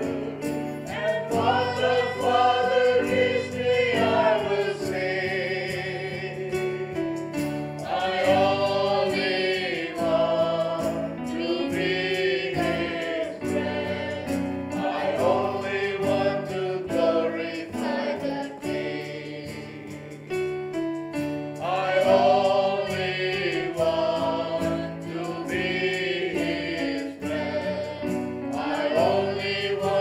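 A choir sings a Christian worship song over instrumental accompaniment with bass and a steady beat.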